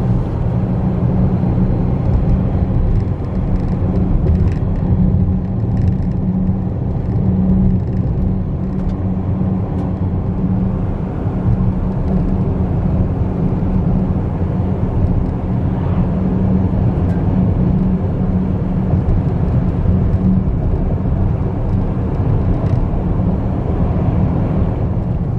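Steady road and engine rumble heard inside a car's cabin while driving.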